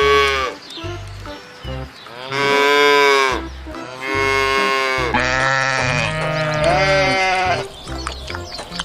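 Farm animals bleating, several long wavering calls one after another, with a lower, deeper call overlapping near the end.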